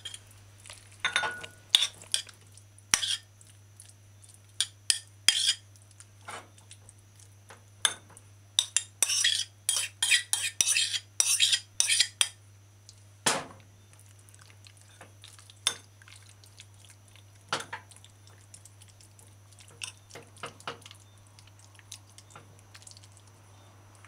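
Spoon clinking and scraping against a ceramic bowl and plate as potato salad is spooned out onto the plate. Scattered taps at first, a quick run of clinks and scrapes around ten seconds in, then occasional taps as the salad is spread.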